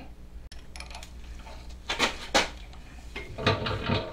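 Sharp metallic clinks from handling a drill chuck and bit on a milling machine: two about half a second apart near the middle, then a cluster of lighter clinks near the end, over a steady low hum.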